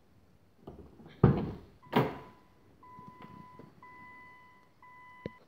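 Two heavy thunks from the Nissan GT-R, about a second apart, like its door shutting, followed by a run of steady electronic beeps, each about a second long, from the car's warning chime or alarm.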